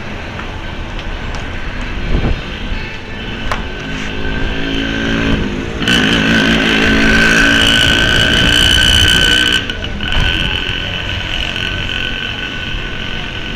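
Road traffic noise with vehicle engines running. About four seconds in, an engine rises in pitch, and from about six to nine and a half seconds a louder vehicle passes close by, covering the rest.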